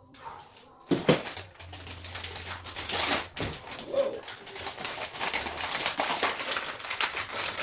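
A plastic anti-static bag crinkling and crackling as a graphics card is handled in it. The crinkling starts sharply about a second in and turns into a dense, continuous crackle.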